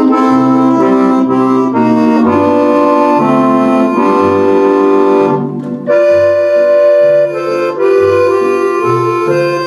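Roland FR-8X digital accordion playing held chords over an alternating left-hand bass. A newly selected accordion register is layered over a sustained organ voice, giving a Cordovox-style sound.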